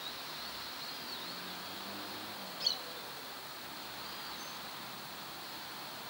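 Outdoor park ambience: a steady hiss with faint bird chirps now and then, and one sharper bird call about two and a half seconds in.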